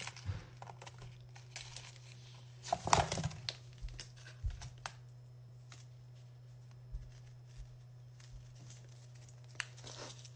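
Scoop scraping and rustling in a can of powdered infant formula, with scattered clicks and a louder clatter about three seconds in, over a low steady hum.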